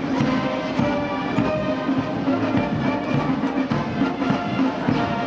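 Military brass band playing music with sustained notes that shift in pitch every so often.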